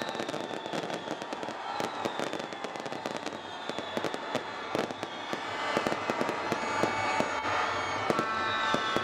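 Aerial fireworks bursting in rapid succession: a dense run of sharp bangs and crackles, growing louder in the second half.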